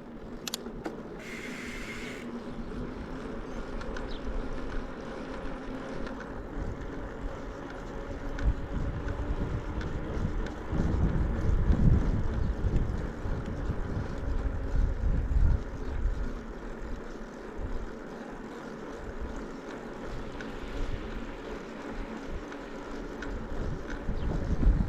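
Wind buffeting the microphone over the steady rolling rumble of a mountain bike on a dirt trail, with a louder stretch of low rumble around the middle.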